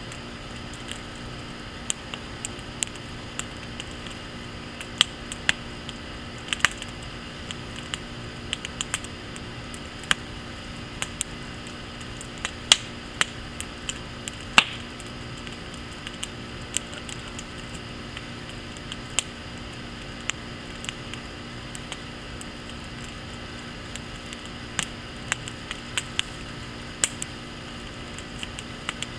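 Wood fire in a fire pit crackling and popping: irregular sharp snaps over a steady low hiss, the two loudest pops a little before halfway, about two seconds apart.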